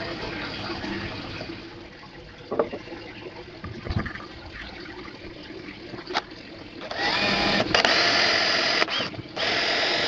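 A few light knocks over a low hiss, then about seven seconds in a hand-held electric power tool starts up and runs with a steady high whine, cutting out briefly twice.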